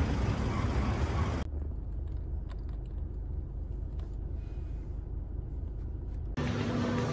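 Background ambience from spliced clips. Open-air ambient noise at first, then about a second and a half in a sudden cut to a low, muffled rumble with a few faint clicks. Near the end it cuts again to a louder, busier indoor ambience with a steady hum.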